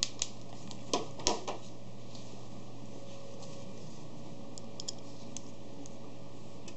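A few light clicks and taps as a screw and screwdriver are handled against the sheet-metal frame of a Sharp AL copier's scanner. There is a cluster in the first second and a half and fainter ticks near the end, over a steady low hum.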